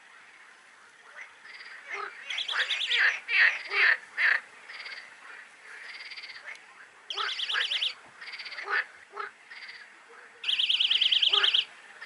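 A chorus of frogs calling at the water's edge: repeated rapid pulsed calls, the loudest three trains each lasting about a second, with shorter croaks between them.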